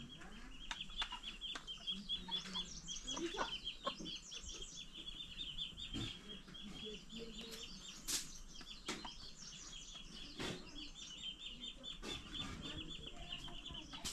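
Chickens clucking softly over a continuous rapid, high-pitched chirping, with scattered light clicks and scratches.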